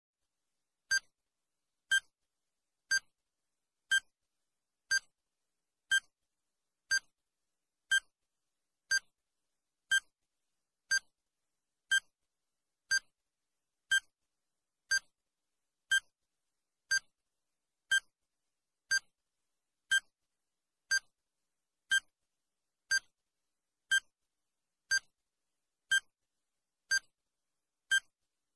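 Countdown timer sound effect: a short electronic beep once every second, evenly spaced, each one marking a second counted down.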